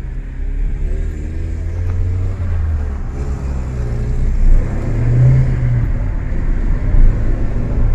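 Car engine and road noise heard from inside the cabin while the car drives and picks up speed, with a low rumble and an engine note that climbs, drops back and climbs again.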